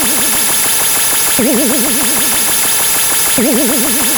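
A loud, dense jumble of many sound effects layered on top of one another, making a steady cacophony. A short warbling tone, wobbling quickly up and down in pitch, cuts through twice, about two seconds apart.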